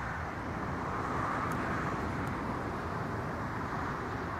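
Steady outdoor background rush with no distinct tones, swelling slightly a second or so in.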